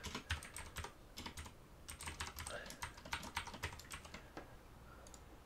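Typing on a computer keyboard: a quick run of key clicks for about the first four seconds, then a few scattered clicks.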